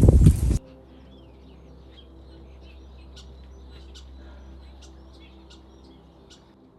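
Small birds chirping in short, high twitters over a faint steady low hum. A louder sound cuts off about half a second in.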